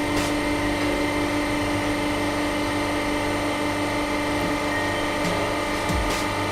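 Hydraulic press pump and motor running steadily, a constant hum with a whine, while the press works on rubber dog toys.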